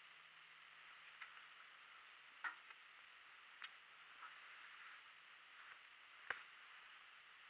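A handful of sharp, light clicks and knocks as a compound bow and gear are handled in a metal hang-on tree stand, the loudest about two and a half seconds in and near the end, over a faint steady hiss.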